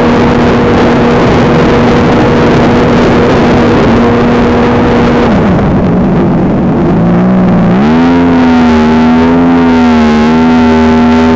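Sea-Doo 4-TEC jet ski engine running hard at speed, over a steady rush of wind and water. About five seconds in the pitch drops as the throttle comes off, then climbs back near the eight-second mark and holds steady again.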